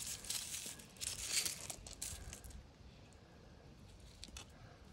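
Fingers raking through loose small quartz pebbles and gravel, the stones clicking and scraping against each other. The sound is clearest in the first two seconds or so, then fades to a few faint clicks.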